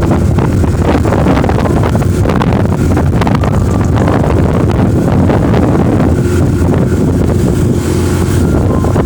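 Vehicle on the move: steady engine and road noise with wind buffeting the microphone.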